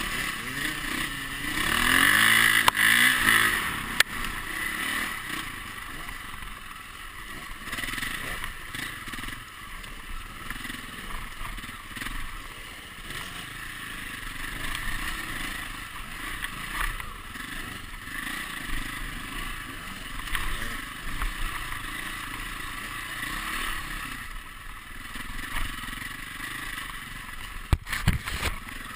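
Dirt bike engine running and revving, its pitch rising and falling as the throttle opens and closes, over a steady rushing hiss. A couple of sharp knocks come near the end.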